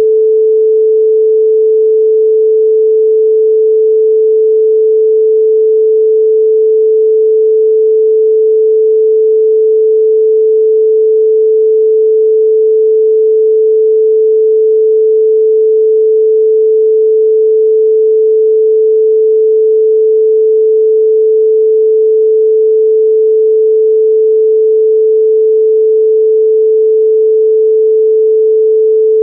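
A single pure, electronically generated sine tone held perfectly steady at a middle pitch, loud and unchanging: a meditation frequency tone for chakra activation.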